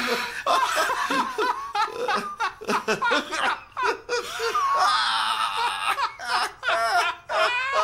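Two men laughing hard and long: uncontrolled belly laughter in repeated peals, with a higher, wheezing stretch around the middle.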